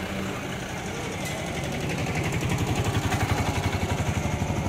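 Vehicle engines passing close in street traffic: a pickup truck first, then from about two seconds in the louder, fast, evenly pulsing engine of an autorickshaw driving past.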